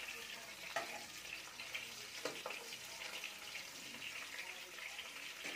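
Potato sticks frying in hot oil in a pan: a steady crackling sizzle, with a few light clicks as a metal slotted skimmer turns them against the pan. This is the first, light fry of double-fried French fries.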